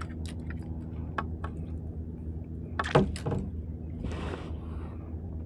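Light clicks and knocks from gear being handled in a kayak over a steady low hum, with a sharper knock about three seconds in and a short swish about a second later.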